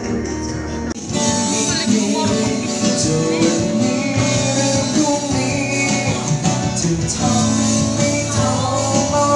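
Music: a song with a singer, which steps up louder and fuller about a second in.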